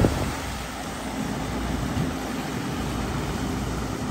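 Engines running steadily as a Ford Endeavour SUV moves through deep, watery mud next to a John Deere tractor, with a short knock at the very start.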